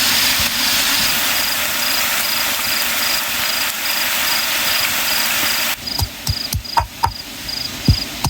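An insect, likely a cricket, chirping in even pulses about three times a second over a dense steady hiss. The hiss cuts off suddenly near the end, leaving a few knocks and clicks.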